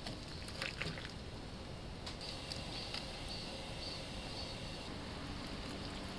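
Handfuls of napa cabbage dropped into a pot of broth, giving a few small splashes and wet squishes in the first few seconds over a steady low hiss.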